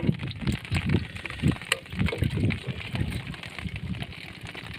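Floodwater sloshing and splashing in short, irregular bursts as a fishing net is handled in it, with one sharp click less than halfway through.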